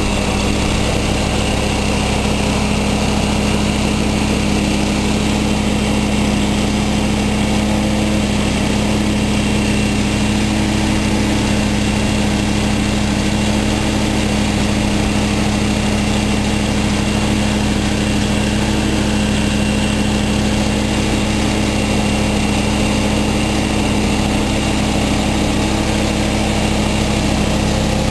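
John Deere 1032 snowblower, fitted with a new high-horsepower engine, running steadily with its belts and auger turning.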